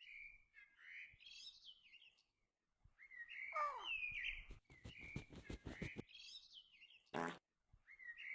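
Birds chirping and tweeting in a string of quick, high, sliding notes, with a fast rattling trill a little past the middle and a short buzzy call near the end. Faint.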